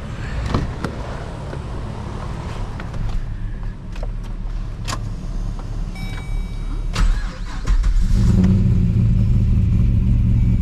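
A few clicks and knocks, then about eight seconds in the LS-swapped V8 with a Brian Tooley Stage 2 camshaft in a 2004 GMC Canyon starts and runs steadily.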